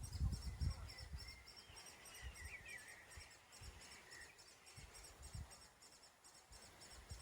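Woodland birdsong, faint: high, short chirps repeating several times a second throughout, with a brief warbling song from about one to four seconds in.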